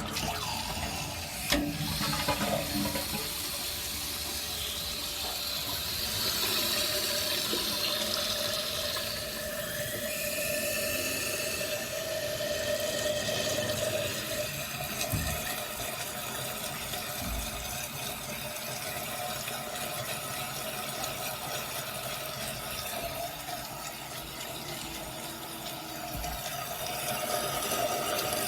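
Kohler Cavata toilet flushing and its tank refilling: a steady rush of running water, with a couple of sharp clicks at the start.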